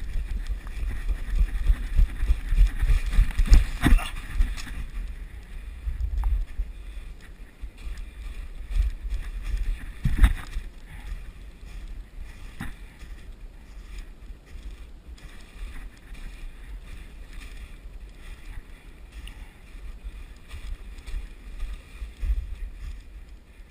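Low rumbling wind and movement noise on a body-worn camera microphone, swelling and easing, with a few sharp knocks, the loudest about 4 and 10 seconds in.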